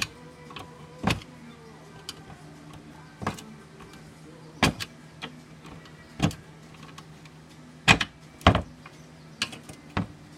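Screwdriver prying at the centre of a worn plastic tensor roller on a Porsche 911 (996) window regulator: sharp, irregular clicks and knocks about a second or two apart as the centre piece is worked loose to free the roller.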